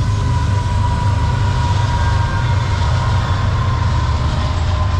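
A loud, steady low engine rumble from a heavy vehicle running nearby, with a thin steady whine over it.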